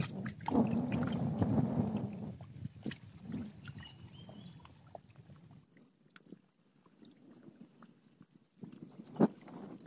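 Small waves lapping and splashing at the water's edge, louder in the first two seconds and then quieter, with a single sharp click near the end.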